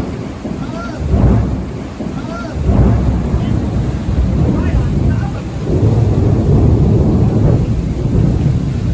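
Monsoon thunder rumbling loudly in several rolling swells.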